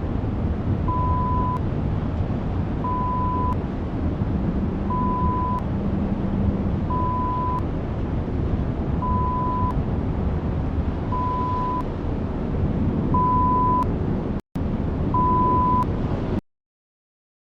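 Heavy desert wind, a steady low rush, with a short steady beep added about every two seconds, eight beeps in all. It drops out for an instant near the end, then cuts off abruptly.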